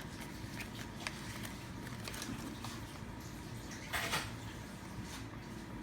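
Faint handling of a toy and its plastic packaging: a few small clicks and taps, with a brief rustle about four seconds in.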